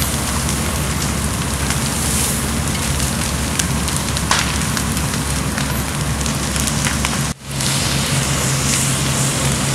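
Fully involved house fire: flames crackling with scattered sharp pops, and water from an aerial master stream hissing and pattering down, over a steady low hum of fire apparatus engines. The sound drops out for an instant about seven seconds in.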